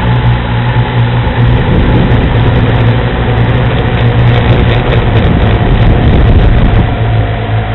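Quadcopter's motors and propellers buzzing steadily, picked up by the small camera riding on the drone, with a rushing wind noise that grows louder from about a second and a half in as the drone climbs away.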